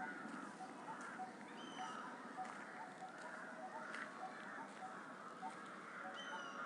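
Birds calling: a short note repeated about twice a second, with a higher, slightly falling chirp twice, once near the middle and once near the end.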